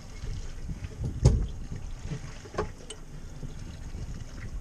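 Wind on the microphone and water against a small boat's hull, a steady low rumble. There is a sharp knock on the boat about a second in, and a smaller knock a second or so later.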